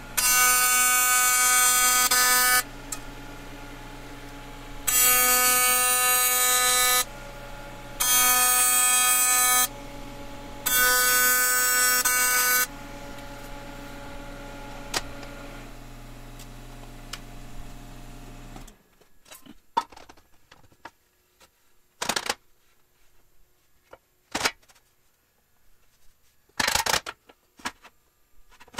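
AC TIG arc of a Miller Dynasty 400 welding aluminum, a loud steady buzz with a pitched tone, struck four times for about two seconds each in the first 13 seconds. A steady machine hum carries on between the welds and stops about 19 seconds in, followed by three sharp knocks.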